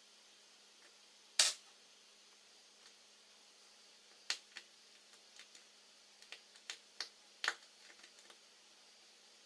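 Small sharp clicks and taps of tools and small parts being handled inside an iPhone 5 during reassembly. There is one loud click about a second and a half in, then a run of lighter, irregular clicks in the second half.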